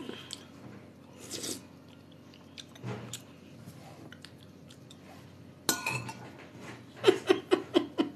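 Someone eating bean soup: a metal spoon clicking against the soup bowl between mouthfuls, with chewing and mouth sounds. Near the end comes a quick run of short pulses, about five a second.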